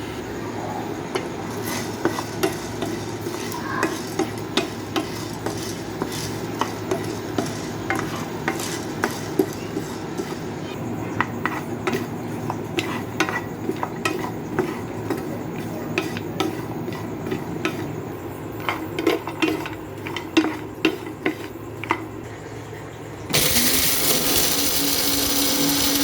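Whole spices dry-roasting in a pan, stirred with a spatula that scrapes and clicks against the metal at irregular intervals. About 23 seconds in, an electric mixer grinder (mixie) starts abruptly and runs steadily, louder than the stirring, grinding the roasted spices.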